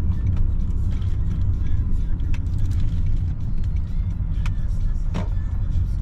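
A car driving, with a steady low road and engine rumble. A few short knocks or squeaks come near the middle and toward the end.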